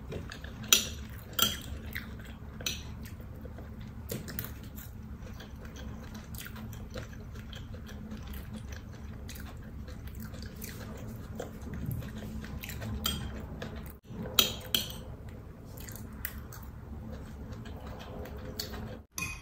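Chewing with scattered sharp clinks of metal cutlery against a plate, the loudest near the start and around two-thirds of the way through.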